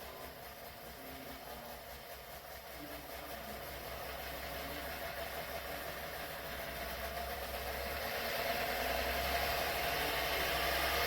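Electric fan running: a steady rush of air with a hum, getting gradually louder, then cutting off abruptly at the end.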